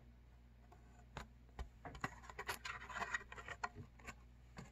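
Faint handling of a cardboard board book as its page is turned: a few light taps and clicks, then a scraping rustle in the middle.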